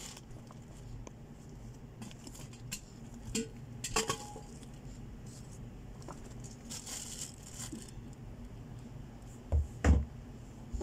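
Goods and plastic snack packets being packed into a cardboard box: scattered light clicks, knocks and plastic crinkling, with two heavy thumps close together near the end.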